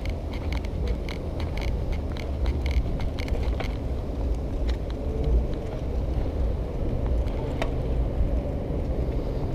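Riding noise from a Xiaomi M365 electric scooter: a steady low rumble of wind and road on the microphone. A quick run of rattling clicks comes in the first few seconds.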